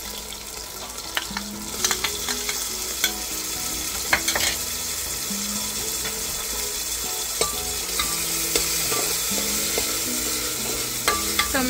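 Chopped onions and tomatoes sizzling in hot oil in a metal pressure cooker, with a metal spoon clicking and scraping against the pan as they are stirred.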